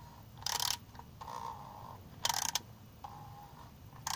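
A 3/8-inch-drive ratchet clicking in three short bursts, a little under two seconds apart, as it turns a cup-type filter wrench to snug down an oil filter housing cap.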